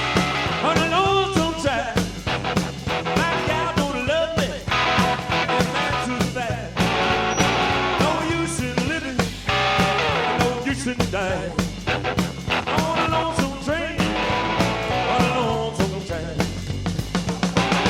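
Instrumental break of a rockabilly song: a band plays without vocals, with a lead electric guitar playing bending lines over a steady bass and drum beat.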